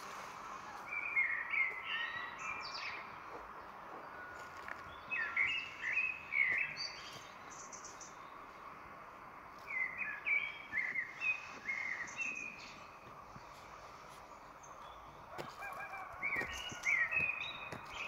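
A songbird singing in short bouts of quick chirped notes, four bouts about four to five seconds apart, over a faint steady forest hiss.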